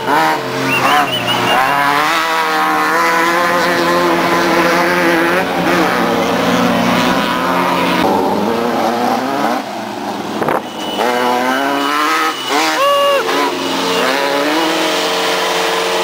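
Air-cooled Volkswagen Baja Bug race engines revving hard as the off-road cars pull away on a dirt road, the pitch climbing and dropping again and again with throttle and gear changes.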